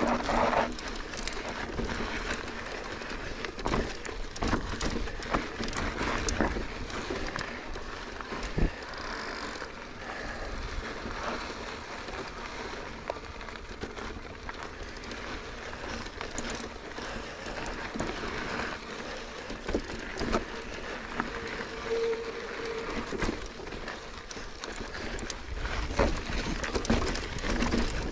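Mountain bike descending a loose, rocky dirt trail: a steady rush of tyre and ride noise broken by many sharp clicks and knocks as the bike rattles over rocks and loose gravel, with a brief steady squeal about two-thirds of the way through.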